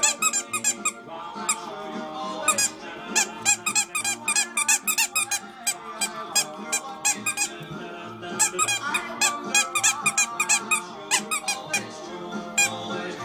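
Background music with a busy, quick beat of sharp clicky strikes over a melody.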